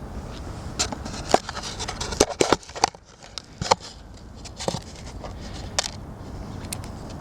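A key being worked in an ice-frozen security padlock: scattered short metallic clicks and scrapes as it is jiggled and turned, and the lock does not open because it is frozen solid inside.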